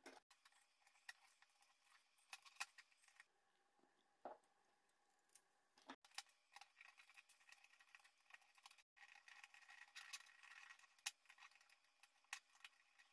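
Near silence, with faint scattered clicks and taps of small parts being handled: an acrylic cover, spacers, metal standoffs and screws fitted onto a circuit board and tightened with a hex key.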